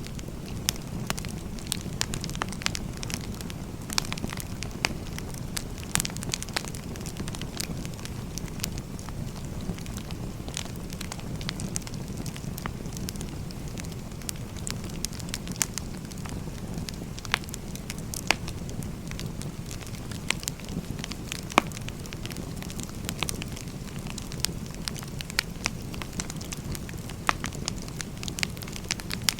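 Firewood burning: a steady low rush with irregular sharp crackles and pops throughout.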